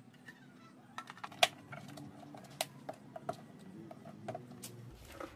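Hard plastic clicking and tapping as a motorbike headlamp's clear lens is handled and pressed onto its housing: a string of sharp, uneven clicks, the loudest about a second and a half in.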